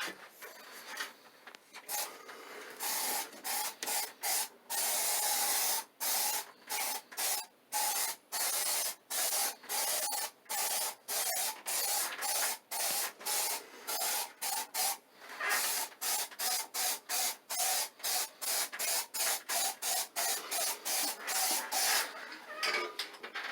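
Aerosol can of Kilz Upshot stain-blocking sealer spraying in quick short bursts, about two a second, with a few longer sprays, as water stains on a ceiling are coated.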